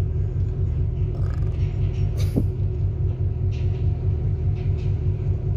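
A ship's engine running steadily under way, a deep even rumble with a steady hum over it. A brief squeak sounds about two seconds in.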